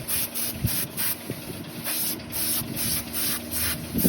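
Repeated rubbing strokes, about two to three a second, each a short hiss.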